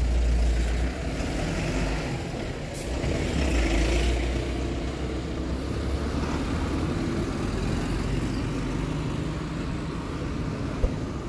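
City street traffic: heavy vehicles' engines running and passing with a steady low rumble, swelling at the start and again about three to four seconds in, with a brief hiss about three seconds in.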